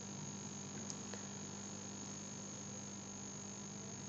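Steady electrical hum and hiss of a recording setup, a low hum with a faint high-pitched whine above it, and a faint tick about a second in.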